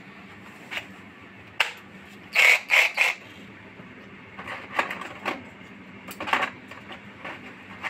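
Sharp hard-plastic clicks and knocks from handling a cordless reciprocating saw and its moulded plastic carrying case. A loud run of three clacks comes about two and a half seconds in, followed by scattered lighter clicks.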